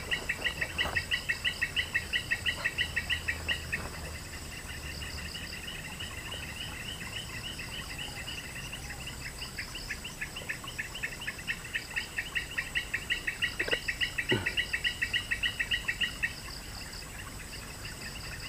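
Insect calling in a fast, even chirp of about five chirps a second, in two long trains: the first stops about four seconds in, and the second runs from about ten to sixteen seconds, with fainter chirping between. A faint steady high whine lies underneath.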